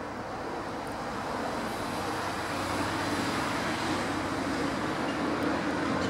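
Road traffic noise: a steady rushing hum of vehicles that grows a little louder about two seconds in, with no bird calls standing out above it.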